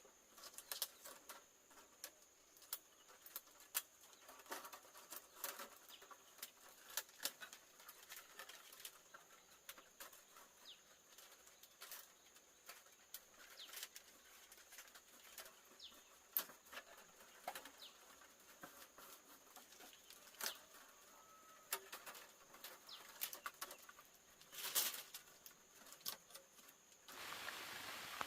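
Faint, irregular clicks and taps over a steady high hiss. Near the end it switches abruptly to an even rain hiss.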